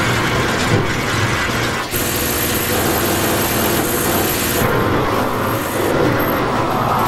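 Black MIDI playback from a MIDI synthesizer: so many piano notes sounding at once that they blur into a loud, dense wall of noise. The texture shifts about two seconds in, and the very top end thins out near five seconds.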